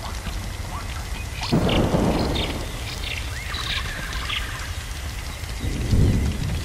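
Thunderstorm ambience: thunder rumbles twice, starting suddenly about a second and a half in and again near the end. Underneath is a steady crackling hiss, with short high bird-like chirps scattered through it.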